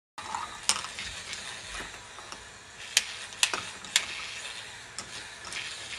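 K'nex ball machine running: its plastic lift mechanism rattles and clicks steadily, with several sharp clacks of balls knocking on the plastic track and parts, the loudest between about one and four seconds in.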